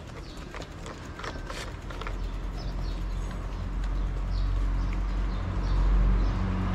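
Cat crunching dry kibble from a plastic food tray, in small sharp clicks and crunches. A low engine rumble swells from about two seconds in and becomes the loudest sound.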